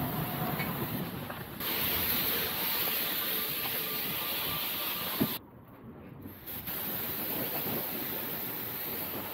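Pressure washer jet spraying water onto a motorcycle, a steady hiss. It is broken by a sharp click about five seconds in and a quieter second after it, then resumes.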